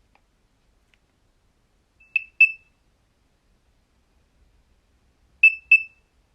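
Nokia 3100 mobile phone sounding a simple alert tone: a pair of short, high beeps about two seconds in, repeated about three seconds later.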